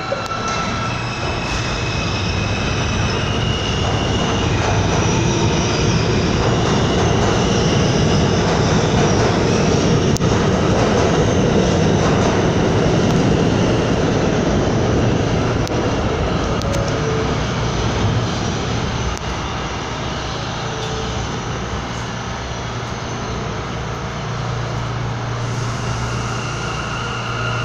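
New York City subway train running through the station: a steady rumble and rattle with a low hum and a thin high whine. It grows louder over the first several seconds and eases off in the second half.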